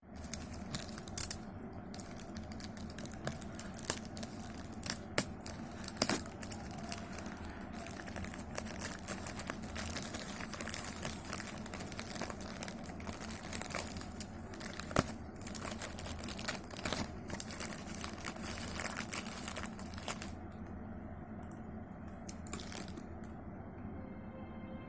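Packaging being crumpled and torn open: irregular crinkling with many sharp crackles, thinning out about 20 seconds in.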